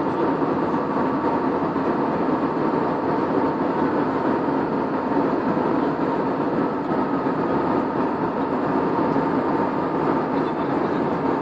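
Airliner cabin noise in flight: a steady rush of engine and airflow with a faint steady hum over it.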